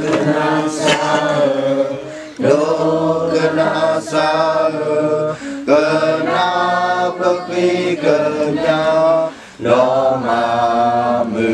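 Men's voices singing unaccompanied, in slow held phrases a few seconds long with short pauses for breath between.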